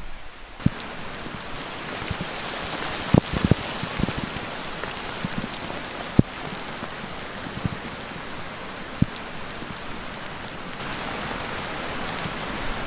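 Heavy rain falling steadily on forest foliage, starting about half a second in, with a few sharp knocks close by.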